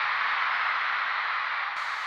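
A steady rushing, hiss-like noise with no tune or voices in it, easing down slightly toward the end.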